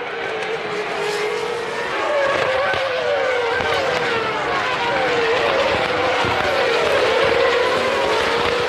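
1999 Formula One cars' V10 engines at racing speed, the pitch climbing and dropping sharply through gear changes. The sound grows louder about two seconds in.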